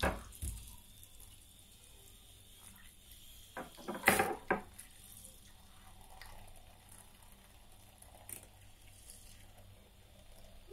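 A small hand whisk beating raw eggs with spices in a glass dish: faint sloshing, with a few sharp clicks of the whisk against the glass, the loudest about four seconds in.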